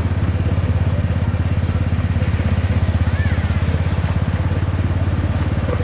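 Miniature railway locomotive's engine running steadily as it hauls the train, a fast, even pulse.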